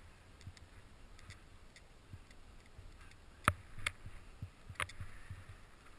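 Skis running through snow on a downhill run, heard faintly from a mounted camera, with soft low thumps throughout and three sharp clicks in the second half.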